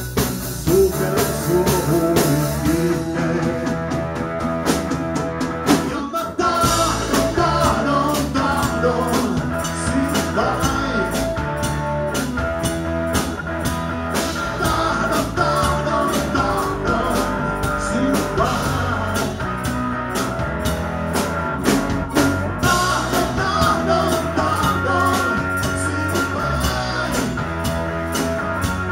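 Live rock band playing a rock-and-roll song: electric guitar over bass and a steady drum-kit beat.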